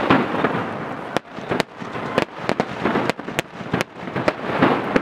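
Firecrackers packed inside the burning Böögg, a snowman effigy atop a bonfire, going off in about a dozen sharp bangs at irregular intervals.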